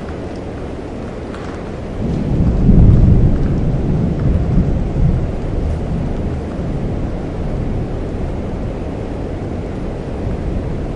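Steady rain with a roll of thunder that breaks in about two seconds in, is loudest a second later, and rumbles away over the following seconds.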